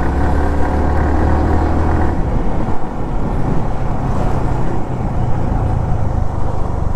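A vehicle on the move: a steady low engine drone with continuous road and wind noise.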